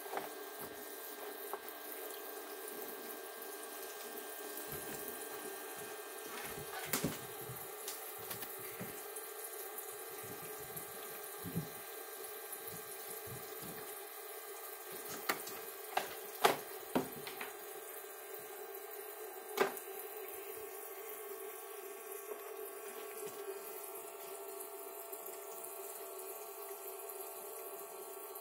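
Water running steadily from a toy sink's faucet into its basin, with splashing and several sharp knocks as a macaque handles plastic dishes and toys in the water.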